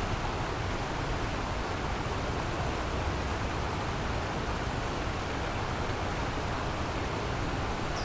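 Kamo River water rushing, a steady, even wash of sound with no breaks.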